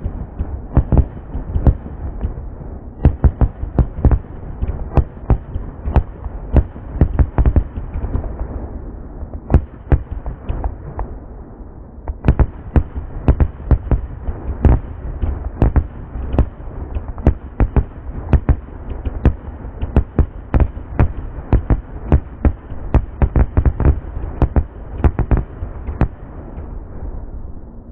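Salute (Trueno) reports from a 100-shot consumer fireworks cake, many sharp, dull bangs coming irregularly several times a second, with a muffled tone lacking any high end.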